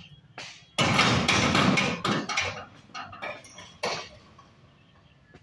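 Railway level-crossing boom barriers coming down: a sudden loud metallic clatter about a second in, then a few lighter clanks fading out by about four seconds.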